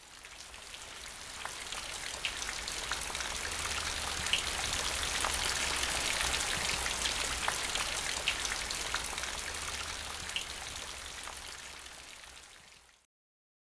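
Rain falling, with many small drops ticking through a steady hiss; it fades in over the first few seconds, fades out and stops shortly before the end.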